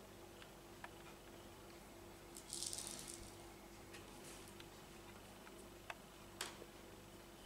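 A cat toy rattles briefly about two and a half seconds in as a kitten bats it, followed by a few faint taps of paws and claws on the robot vacuum's plastic lid.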